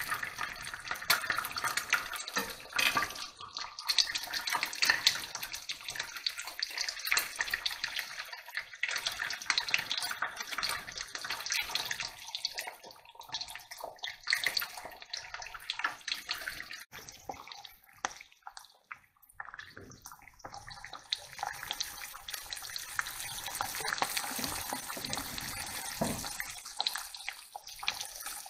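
Eggs frying in hot fat in a frying pan: a steady sizzle full of small crackles and spits. It dies down for a few seconds a little past halfway, then picks up again.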